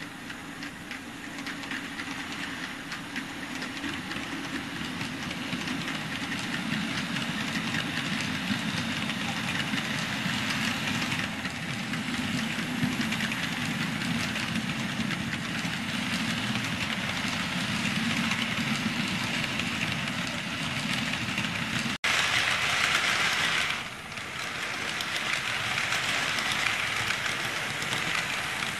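KATO N-gauge 205 series electric train model running on layout track: a steady rattling hum of its motor and wheels that grows louder over the first few seconds as it approaches. About three-quarters of the way through, the sound cuts out for an instant, then comes back louder for a couple of seconds.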